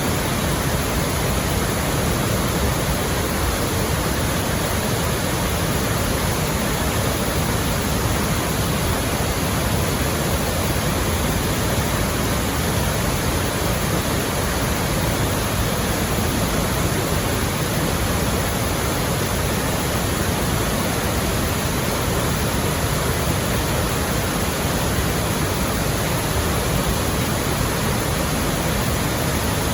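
A waterfall heard up close: a loud, steady rush of falling water that does not change.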